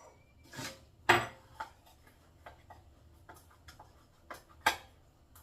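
Light kitchen clatter: a string of small taps and clicks of utensils and dishes, with two sharper knocks, one about a second in and one near the end.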